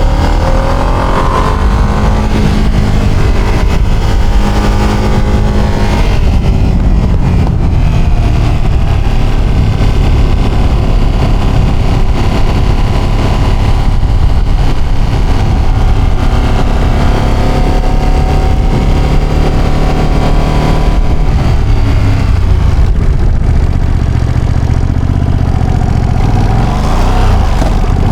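Ducati Panigale motorcycle engine and exhaust under way, accelerating repeatedly: the pitch climbs in rising sweeps about a second in and again several times, settling lower before a last rise near the end.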